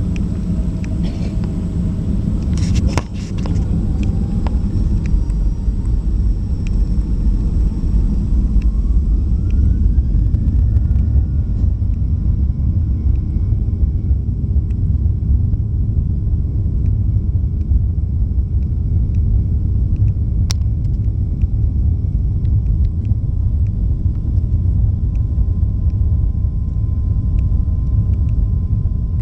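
Jet airliner heard from inside the cabin as its engines spool up for takeoff: a rising whine about eight seconds in levels off a few seconds later, over a steady low rumble.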